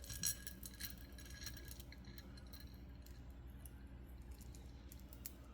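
Crystal beads clinking and clicking against each other as they are handled: a quick cluster of light clicks in the first two seconds, then a few scattered ones.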